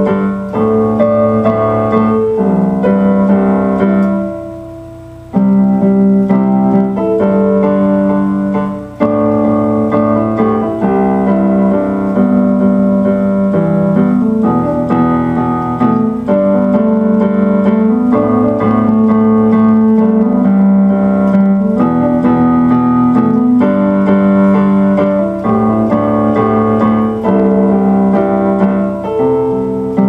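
Solo piano music played on a keyboard: slow, held chords with a low note repeating underneath. It briefly fades away about four seconds in, then comes back.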